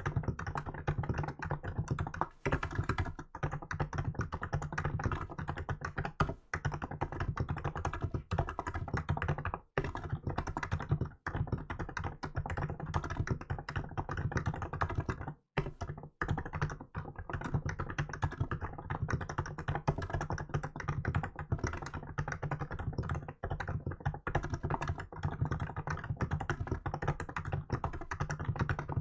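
Fast, continuous typing on a Hansung GK868B electrostatic capacitive (non-contact) keyboard with milk-white keycaps, a dense run of keystrokes broken by short pauses about ten and fifteen seconds in.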